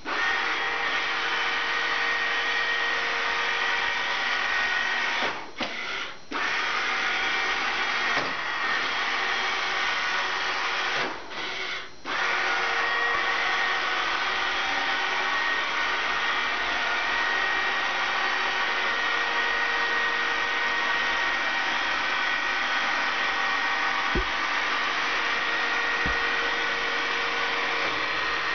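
Techko Maid RV102 robotic sweeper running as it moves across a hardwood floor: a steady motor whir with a high whine. The whir dips briefly twice, about five and eleven seconds in, and two faint knocks come near the end.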